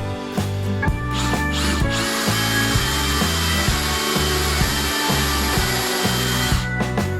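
An electric power tool running on wood for about five seconds, with a steady high whine, starting about a second in and cutting off near the end, over background guitar music.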